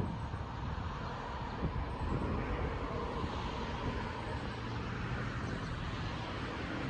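Steady outdoor drone of a distant engine, such as traffic or an aircraft, with a faint steady whine and light wind rumbling on the microphone.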